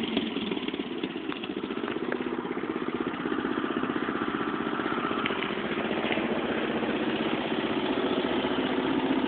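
Small lawnmower engine running steadily with a fast, even pulse, growing gradually louder, as the mower is driven through mud.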